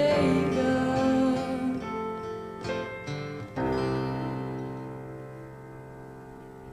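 Worship song ending: a sung final word over the band, then a last chord struck on keyboard and guitar about three and a half seconds in, ringing out and slowly fading.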